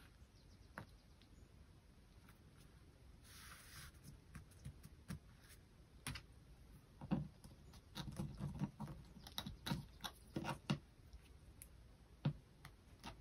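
Faint scattered taps, clicks and rustles of hands handling cork fabric, a plastic quilting ruler and plastic sewing clips on a tabletop.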